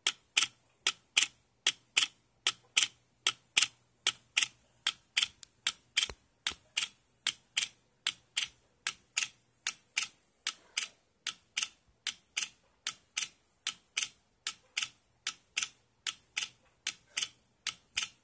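Valtek LPG injector solenoids on a rail clicking open and shut as an Arduino pulses them 300 ms open and 300 ms closed: a steady, evenly spaced clicking, about three clicks a second. The injectors are held open far longer than their normal 16 to 18 ms, which heats the coils.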